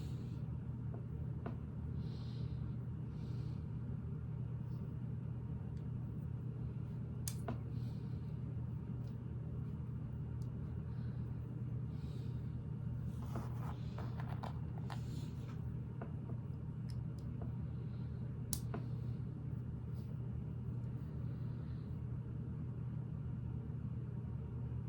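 Small LEGO plastic pieces being handled and pressed on, giving scattered faint clicks and rustles over a steady low hum.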